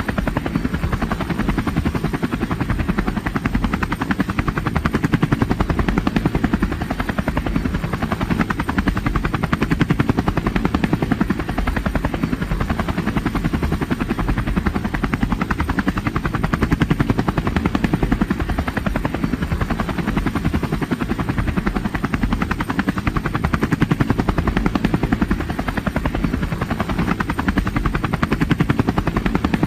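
Helicopter with its rotor blades beating rapidly and steadily, the loudness swelling and easing a little every few seconds.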